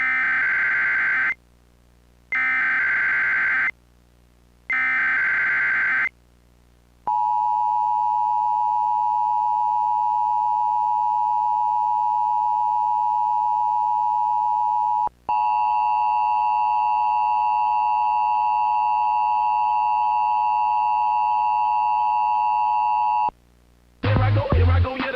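Emergency Alert System tones: three short bursts of SAME header data, each about a second and a half long, then the steady two-pitch EAS attention signal for about eight seconds, then a second, different steady tone for about eight seconds. Hip-hop music with rapping starts about a second before the end.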